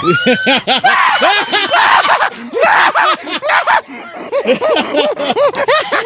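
A scare actor screaming in a jump scare at close range, loud and repeated, with shrieks and laughter mixed in.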